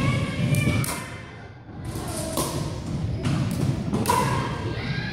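Irregular hard knocks and thuds, about seven or eight, each echoing briefly in a large gymnasium, with a few short high squeals between them.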